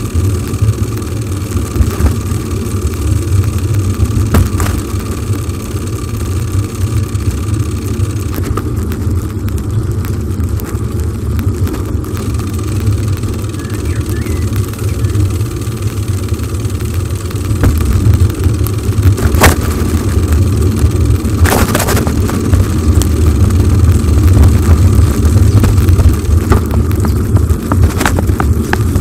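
Wind buffeting the microphone of a camera riding on a moving bicycle: a steady low rumble, a little louder near the end, with a few sharp knocks from the bike going over bumps, the strongest about two thirds of the way in.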